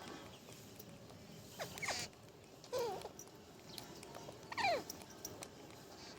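Pet parrot giving three short calls, each falling in pitch, spaced a second or two apart.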